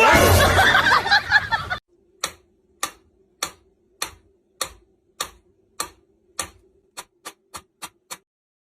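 A loud, noisy burst lasting nearly two seconds, then a ticking sound effect over a faint steady hum: evenly spaced ticks that speed up toward the end, like a timer counting down, and stop abruptly.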